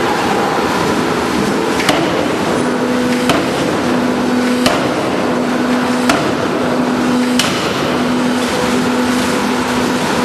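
4-ton double-arm hydraulic open die forging hammer striking at a steady pace, five sharp blows about a second and a half apart, over a loud continuous machine din with a hum that comes and goes.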